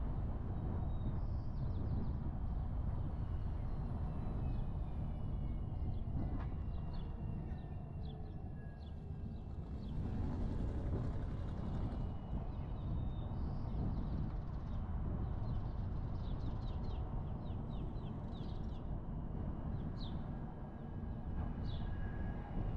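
A car driving along town streets: a steady low rumble of road and engine noise. Short, faint high chirps come and go over it, most of them past the middle.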